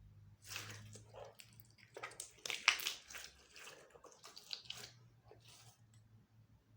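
Slime being mixed and squeezed by hand: wet, sticky squishing in irregular bursts, loudest near the middle and dying away after about five seconds.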